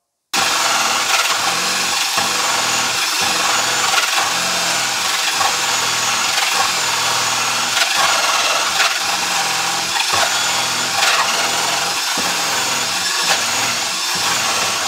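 Cordless drill turning a hole saw through a thick wooden board wall, running steadily under load with uneven catches as the teeth bite. It starts abruptly.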